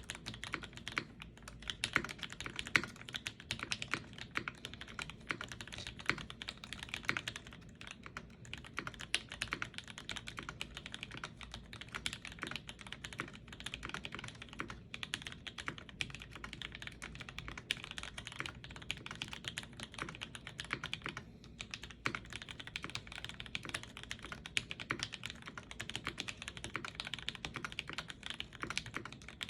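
Continuous typing on a UTD 360C mechanical keyboard with lubed and filmed C³ Tangerine linear switches, GMK keycaps, an aluminum plate and no foam: a dense stream of keystroke clacks, broken by a few short pauses.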